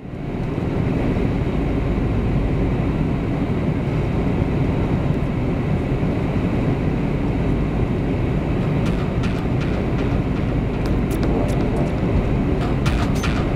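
Steady engine and airflow noise inside a jet airliner's cabin, fading in at the start, with a few light clicks near the end.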